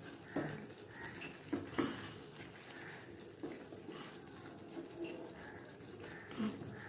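Wooden spatula working a thick poppy-seed and curd sauce over fish pieces in a pan: soft wet sloshing and smearing, with a few light, irregular knocks of the spatula on the pan.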